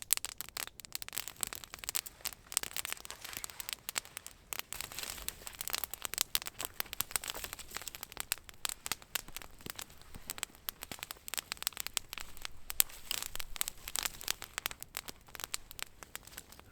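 Wood campfire crackling, with many sharp, irregular pops and snaps.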